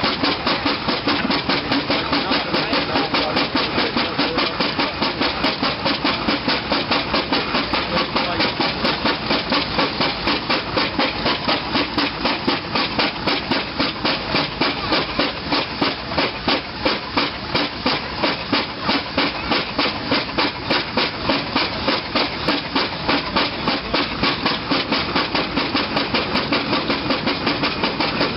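1874 Fowler steam ploughing engine working its winding drum under steam, its exhaust and motion beating in a rapid, even rhythm as it winches in the wire rope.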